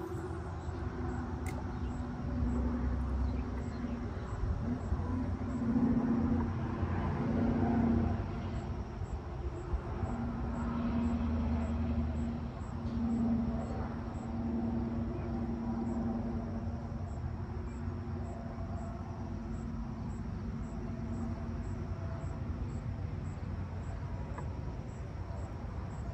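A motor running steadily, a low humming tone that swells and fades in loudness.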